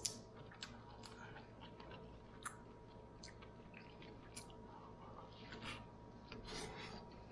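Quiet hand-eating sounds: small clicks and crackles of a cooked shrimp being peeled, then a lamb meatball pulled apart with the fingers, bitten into and chewed near the end.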